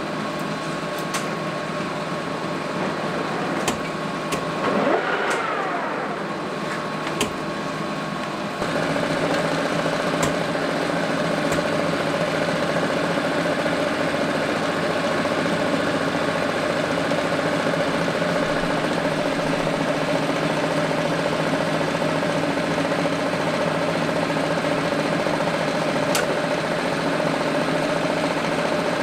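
Metal lathe running steadily with a bent vehicle axle shaft spinning in its chuck for a runout check. It is a steady machine hum with a couple of constant tones, starting abruptly about nine seconds in. Before that there are a few clicks and a brief sweep in pitch.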